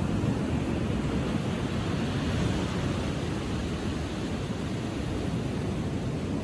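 Ocean surf breaking and washing up a sandy beach: a steady rush of noise that swells a little about two seconds in.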